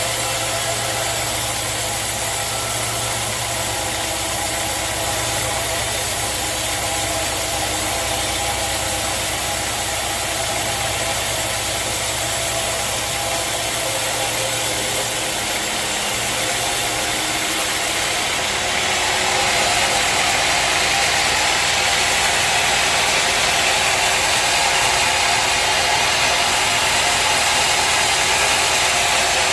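Sawmill machinery running steadily with a low hum. About two-thirds of the way through it grows louder and hissier.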